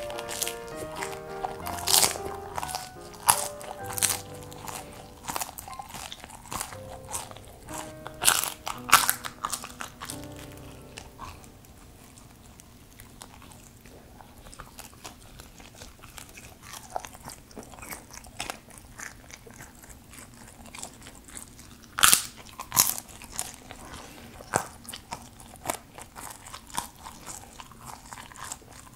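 Close-up mouth sounds of chewing deep-fried bunmoja (thick Chinese starch noodle): crisp crunches and chewy, sticky mastication of a piece that has gone tough as it cooled, with a few louder bites a little past the middle. Background music plays under the first third.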